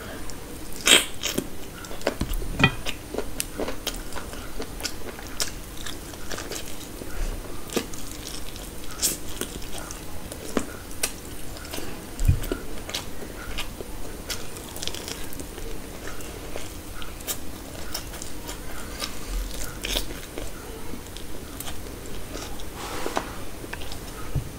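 Close-miked chewing, biting and lip smacks of a person eating chicken biryani and mutton with her hand: a steady run of short wet mouth clicks, a few of them louder.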